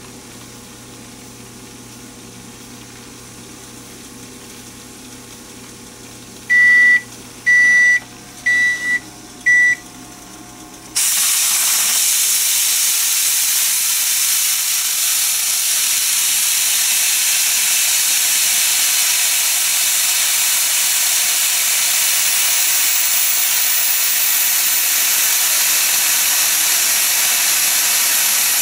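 An electric range's timer beeps four times, then a stovetop aluminium pressure cooker, pressure-frying chicken in oil, suddenly starts venting steam with a loud, steady hiss as its pressure is let off at the end of the cooking time.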